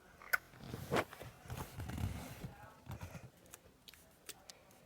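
Slime being squished and stretched in the hands, with small sticky clicks and pops.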